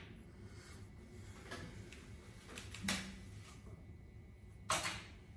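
Light clicks and taps of small tools and bulb parts handled on a wooden desk: a few faint ones, then two sharper clicks about three and about four and a half seconds in.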